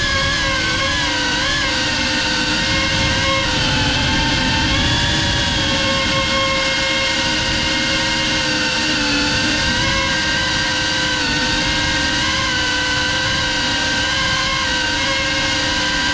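Geprc Cinelog 35 FPV cinewhoop's electric motors and ducted propellers whining steadily, the pitch wavering slightly up and down with the throttle as it flies.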